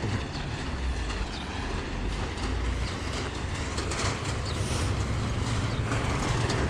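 Wind buffeting the microphone, a steady low rumble with hiss over it, with a few faint footstep clicks on rocky ground; it cuts off suddenly near the end.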